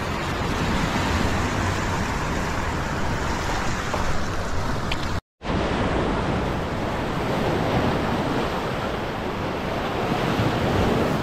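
Sea surf washing and breaking over shoreline rocks, with wind on the microphone; the sound cuts out for a moment about five seconds in and resumes.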